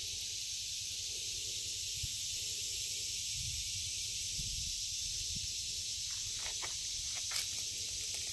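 Steady high hiss of outdoor background sound with a low rumble underneath, and a few faint ticks near the end.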